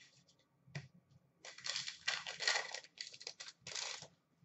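Hockey trading cards being flipped and slid against one another by hand. There is a single click a little under a second in, then a run of short scratchy rustles for about two and a half seconds.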